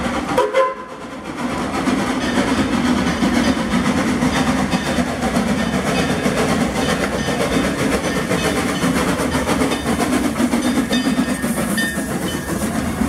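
Steam train rolling past, with the steady rumble and clatter of the locomotive and cars on the rails. A short, sharp sound about half a second in.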